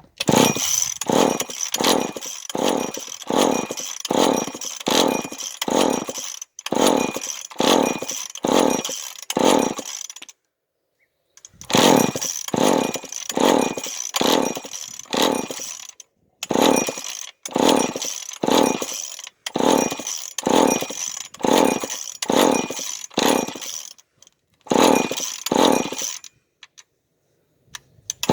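An old chainsaw being pull-started over and over, its carburetor primed with gas poured down the throat after 25 years of sitting. The recoil rope whirs the engine over in quick pulls of about two a second, in runs with short pauses, and the engine does not catch.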